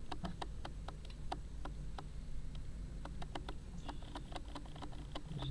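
Camera autofocus motor clicking as it struggles to focus: rapid, uneven clicks several times a second over a low steady hum.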